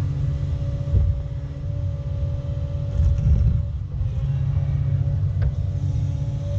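A heavy-equipment diesel engine runs steadily under load with a deep rumble and a steady hum, and a couple of faint knocks sound about a second in and near the end.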